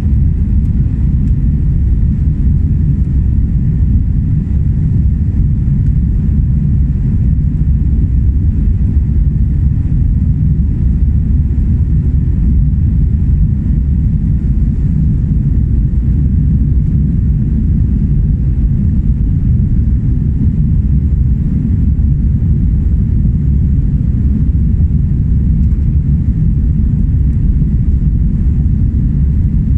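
Steady low in-flight cabin rumble of an Airbus A320-family airliner, from engine and airflow noise heard at a window seat over the wing. A few faint steady tones sit above it.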